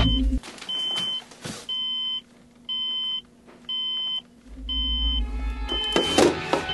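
Digital alarm clock beeping, one high beep about every second, each about half a second long. About two-thirds of the way in a low rumble joins underneath, and near the end there are a few knocks as the clock is grabbed.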